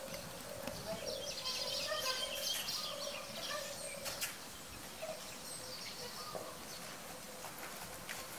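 Wild birds chirping, a busy run of short calls for the first few seconds that thins out later, over a faint steady tone.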